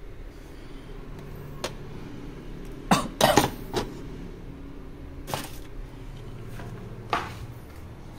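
Several short knocks and clatters of things being handled, loudest in a quick cluster about three seconds in, with single knocks later on. A low steady hum runs underneath.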